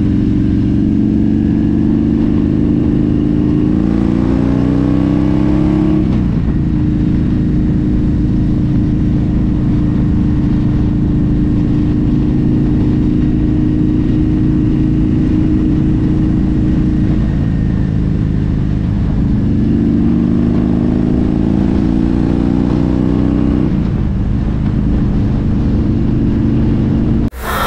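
Harley-Davidson V-twin motorcycle engine under way: it pulls up through the revs for about six seconds, drops at a gear change, holds a steady cruise, then climbs in pitch again about two-thirds of the way in. It cuts off abruptly at the very end.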